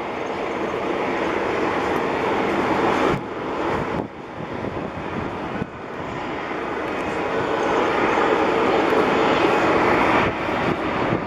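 Bombardier Q400's twin turboprop engines and six-bladed propellers droning on final approach, growing louder as the aircraft nears, with a few abrupt drops in level.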